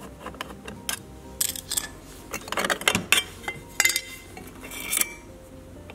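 Screwdriver working the screw and sheet-metal cover of a Samsung dishwasher's electrical junction box as the cover comes off: scattered metallic clicks, clinks and short scrapes, busiest through the middle.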